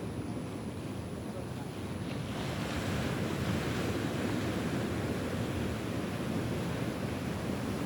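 Ocean surf breaking and washing in, a wave's hiss swelling up about two seconds in over a steady low rumble, with wind buffeting the microphone.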